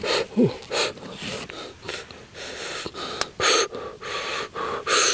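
A person sucking and slurping snail meat out of the shells: a run of short, sharp sucking sounds, a few each second, with a brief falling vocal sound about half a second in.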